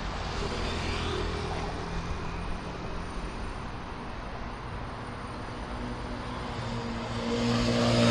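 Road traffic with engines running, and near the end a vehicle passing close, growing louder.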